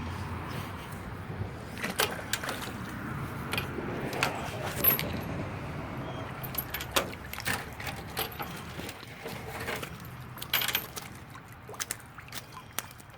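Metal objects jangling and clinking as they are handled, in irregular clicks and knocks, over a low steady rumble.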